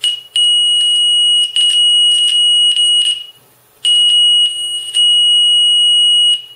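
A 4-ohm speaker driven by an 8002 class AB amplifier board sounding a piercing 2.9 kHz triangle-wave test tone, really loud. The tone cuts out briefly several times and drops out for under a second in the middle before coming back.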